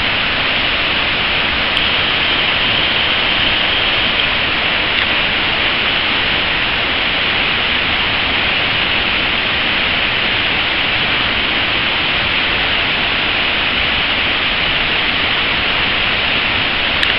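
Waterfall: a steady rush of water falling down a rock face and splashing into its plunge pool.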